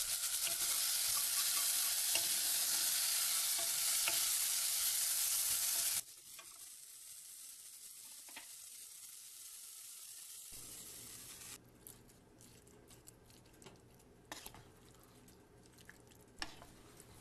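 Diced onions and peppers sizzling in hot oil in a saucepan, stirred with a wooden spoon. After about six seconds the sizzle cuts off suddenly to a much quieter hiss, and near the end there are light scattered clicks of the spoon stirring in the pot.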